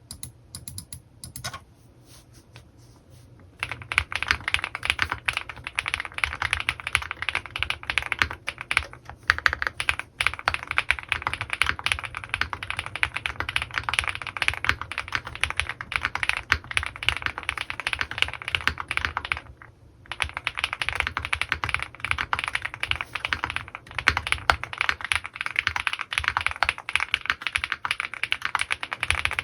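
Typing on an Owlab Mr.Suit custom mechanical keyboard with lubed Gateron Pure Berry switches and GMK keycaps. It starts with a few single keystrokes, then runs into fast continuous typing. The typing stops briefly about two-thirds of the way through and then picks up again.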